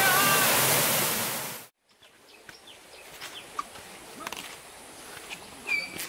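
Loud, steady roar of a waterfall that cuts off suddenly a little under two seconds in. After the cut comes quiet forest ambience with scattered clicks and short chirps, and one short falling whistled call near the end.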